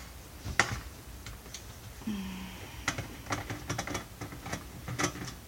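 Scattered light clicks and taps of small parts and tools being handled while taking apart a computer monitor, with a quick cluster of clicks about three seconds in.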